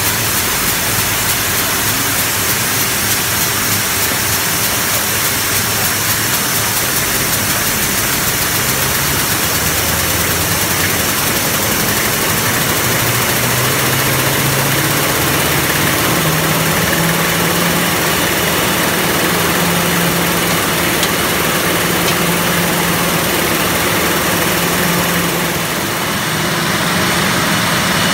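Krones Topmatic rotary bottle labelling machine running at full production speed, about 72,000 bottles an hour: a loud, steady mechanical din with a strong hiss over a low hum that rises slightly in pitch about halfway through.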